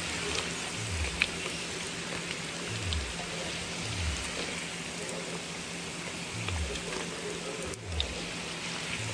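Hot oil sizzling steadily in a wok as deep-fried battered chicken pieces are lifted out with a wire strainer, with a few light clicks.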